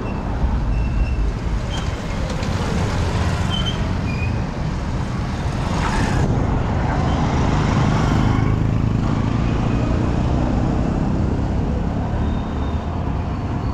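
Busy city street traffic: engines running and vehicles passing in a continuous rumble, growing louder for a few seconds around the middle as something passes close by.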